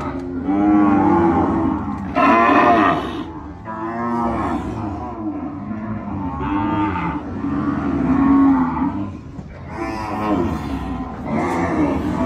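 Herd of white zebu cattle mooing, many calls overlapping and following one another without a break, the loudest about two seconds in and again about eight seconds in.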